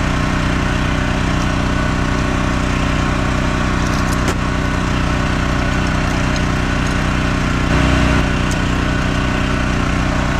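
Portable generator engine running steadily.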